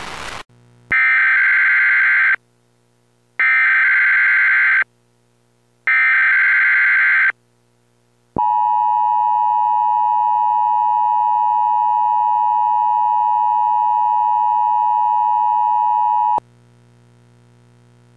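Emergency Alert System tones: three loud, screeching bursts of digital SAME header data, each about a second and a half long, then the steady two-tone EAS attention signal held for about eight seconds before it cuts off suddenly.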